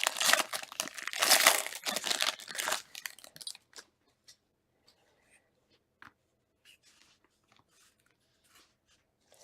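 Crinkling and tearing of plastic card-pack wrapping as trading cards are handled, for about three seconds, then a few faint ticks and near silence.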